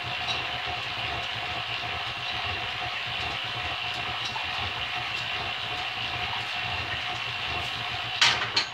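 Belt-driven Champion drill press running steadily under power feed while drilling steel: a continuous whir with a steady high whine. Two sharp, loud clacks close together near the end.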